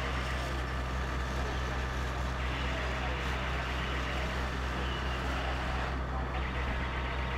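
Fire engine running its pump to feed the hoses: a steady low engine drone that does not change.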